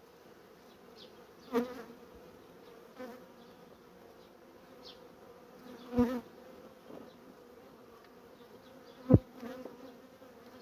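Honeybees humming steadily over an open hive, broken by a few short sharp knocks of a metal hive tool scraping and striking the wooden frames, the loudest near the end.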